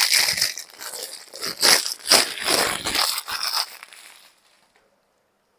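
Plastic packaging cover being opened and pulled off a trimmer, crinkling and rustling unevenly, dying away a little after four seconds in.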